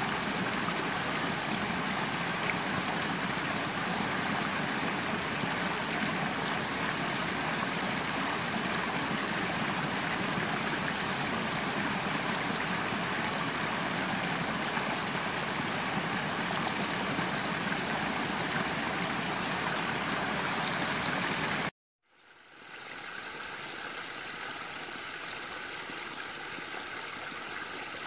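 Small mountain creek rushing and splashing steadily down a rocky cascade. It cuts out abruptly about three-quarters of the way through, then comes back as a quieter trickle of water spilling into a shallow pool.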